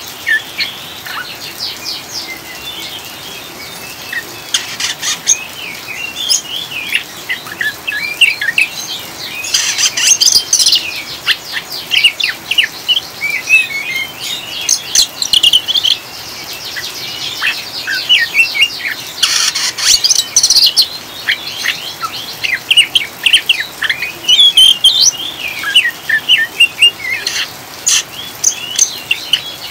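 Oriental magpie-robin (kacer) singing in its 'ngriwik' style: a continuous, rapid chattering twitter of quick high sweeping notes, with a few louder, harsher bursts about a third and two-thirds of the way through.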